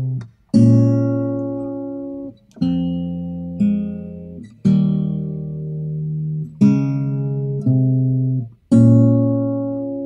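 Guitar playing slow chords, each struck and left to ring and fade, seven in all, with no singing.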